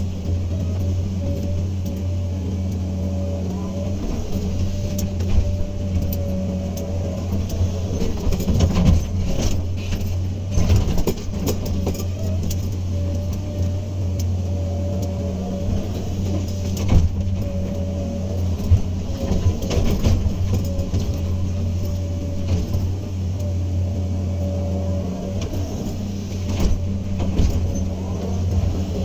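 Hydraulic excavator's diesel engine running steadily with a low hum, with scattered knocks and clanks through it.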